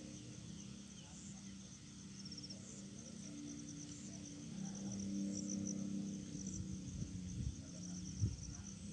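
Insects chirping continuously in a high, fast trill over a faint low hum, with a single soft knock about eight seconds in.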